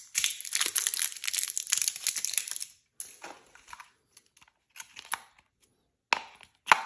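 Plastic crinkling and rustling for about three seconds, then a few separate light clicks and knocks of small plastic parts being handled, as the batteries go into the RC truck.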